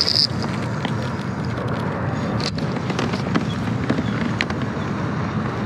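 Kyorim Black Knight BFS baitcasting reel cranked steadily on a retrieve, a continuous low whirring rumble with a few faint ticks.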